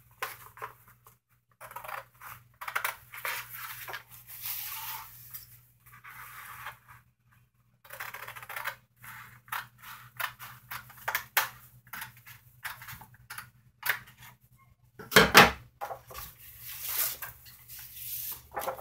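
Scissors cutting through a sheet of heavy white paper in a long run of snips, with the paper rustling and sliding between cuts. One louder thump about fifteen seconds in.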